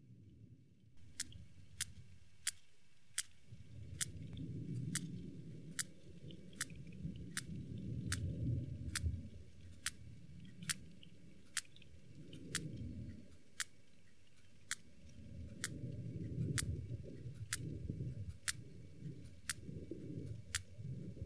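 Sperm whale clicks: sharp, evenly spaced, about three every two seconds, over a low rumble that swells and fades.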